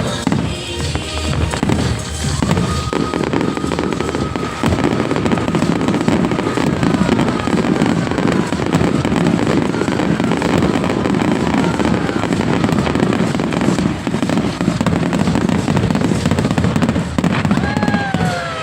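Fireworks going off in a dense, continuous barrage of bangs and crackling, with whistling shells whose tones glide downward in pitch, most clearly near the end.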